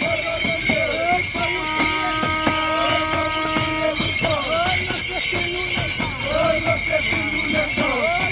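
Bear-dance troupe's frame drums beating and the bells on the dancers' costumes jingling, with voices calling over them. A steady held note sounds from about one and a half to four seconds in.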